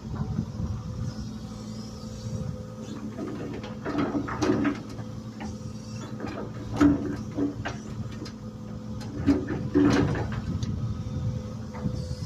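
Excavator running, its engine holding a steady hum, with short bursts of hydraulic whine and knocks and scrapes from the machine working, about a third of the way in, near the middle and again later on.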